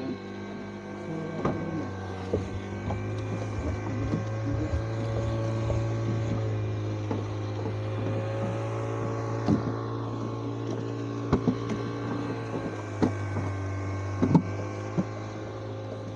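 Outboard motor on a small fishing boat running steadily, with a few sharp knocks in the second half.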